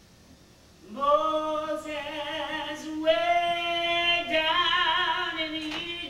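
A woman singing solo and unaccompanied, in long held notes with vibrato, coming in about a second in.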